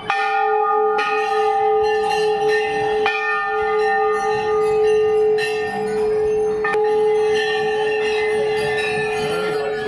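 Hanging Hindu temple bell rung over and over. Its clear ringing tone carries on between strikes, with fresh strikes about a second in, around three seconds and near seven seconds.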